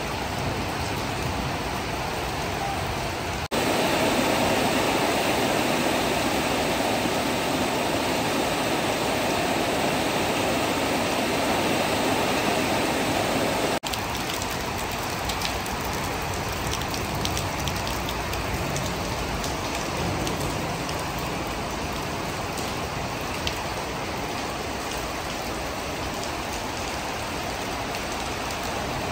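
Heavy rain falling in a steady hiss, in three stretches joined by abrupt cuts after a few seconds and again about halfway; the middle stretch is louder, and the last has scattered drops ticking on a surface.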